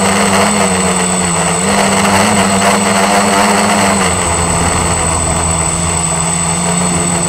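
ST360 quadcopter's electric motors and propellers buzzing steadily in flight, heard close up through the drone's onboard camera, with a steady hum whose pitch wavers slightly and dips a little about four seconds in. A constant thin high whine sits above it.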